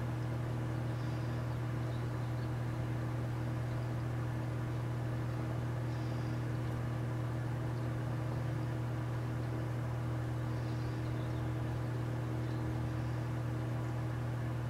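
Birdbath fountain's small pump humming steadily under running, trickling water, with a few faint splashes as a finch bathes.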